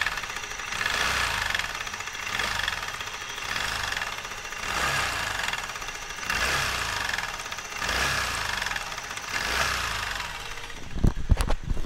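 TVS Ntorq 125 scooter's single-cylinder three-valve engine running, rising and falling about every second and a half, with a harsh, rattling 'chhid chhid chhid' sound. The mechanic suspects a loose timing chain whose automatic tensioner has stuck.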